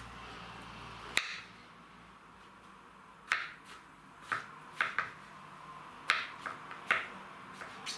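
Kitchen knife slicing button mushrooms on a plastic cutting board: irregular sharp taps as the blade goes through and strikes the board, one about a second in, then a run of several more over the last five seconds.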